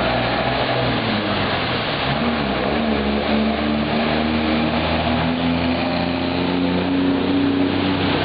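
A heavy box truck's diesel engine running as the truck wades through floodwater, its note rising slowly midway as it passes, over the steady rush and splash of water thrown up by its wheels.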